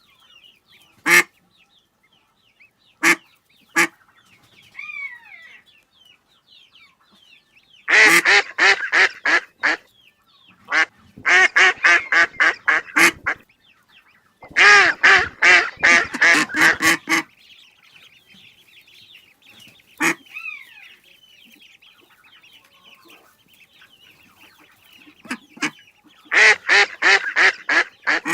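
Ducks quacking: a few single quacks, then four fast runs of quacks, about five a second, each run lasting two to three seconds. Faint twittering of smaller birds can be heard between the runs.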